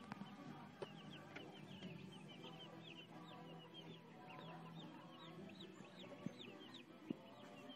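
A group of young chicks peeping continuously: many short, high cheeps overlapping several times a second, faint, over a low steady hum.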